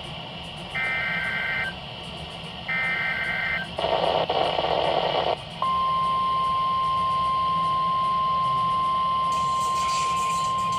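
Emergency Alert System weekly test tones on NOAA Weather Radio. First come the last two of three SAME header data bursts, each about a second of rapid two-tone digital data. Then about a second and a half of noise, and from about halfway through a steady single alert tone near 1050 Hz is held.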